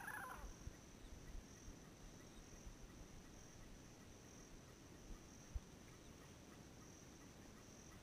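A yellow-headed parrot's loud warbling call tails off within the first half second. After that it is near quiet, with a faint, steady high-pitched insect trill and one soft low thump about five and a half seconds in.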